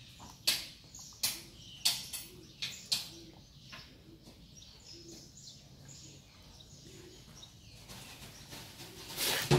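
A series of sharp clicks, about one every two-thirds of a second, growing fainter and stopping about four seconds in, with a louder cluster of clicks and rustle near the end.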